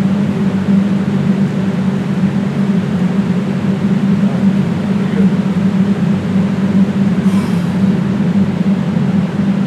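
A loud, steady low hum that holds one pitch, like a machine or electrical drone, with a brief hiss about seven seconds in.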